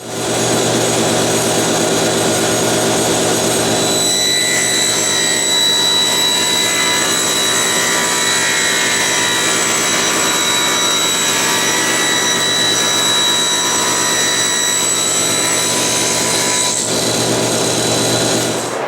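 Table saw running steadily with a high whine. From about four seconds in until near the end, the sound changes as the blade cuts through a panel.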